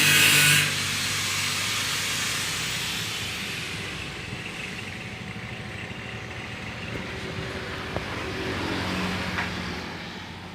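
A motor vehicle's engine passing by, its noise slowly fading over several seconds, after a short loud hiss at the very start.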